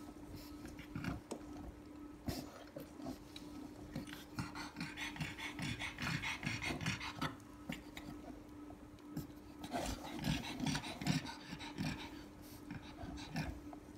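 A pug in labour panting in quick, rasping spells, loudest from about four to seven seconds in and again around ten seconds, over a steady low hum.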